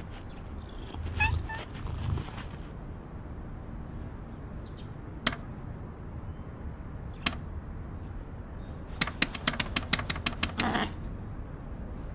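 Arcade push-buttons clicking: two single presses a couple of seconds apart, then a rapid run of about a dozen presses near the end. A short scuffling noise comes in the first two seconds.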